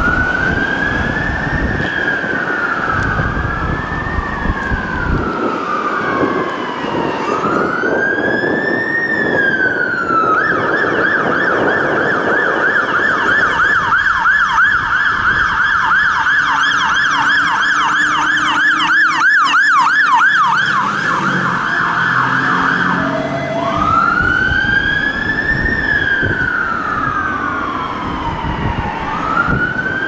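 Fire engine sirens on an emergency run. A slow rising and falling wail gives way about ten seconds in to a fast yelp for around twelve seconds, then returns to the wail, with the trucks' engines running underneath.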